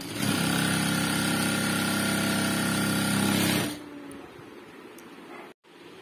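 Jack F4 industrial lockstitch sewing machine running at a high speed setting, stitching steadily, then stopping suddenly after about three and a half seconds.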